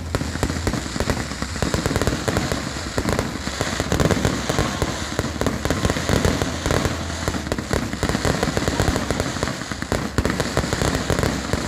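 Fireworks crackling and popping in a dense, rapid run of many small bangs with no pause.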